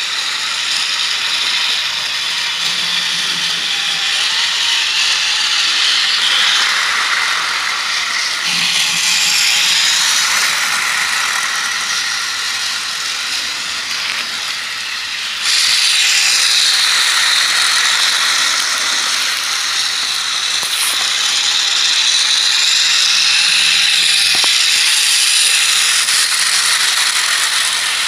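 Battery-powered toy train running on plastic track: the locomotive's small electric motor and gears whirr and the coaches' wheels rattle over the track joints. It gets suddenly louder about halfway through.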